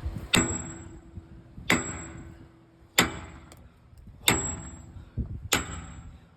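Hammer blows on steel parts during an excavator boom-base repair: five evenly paced strikes, about one every second and a quarter, each ringing out briefly.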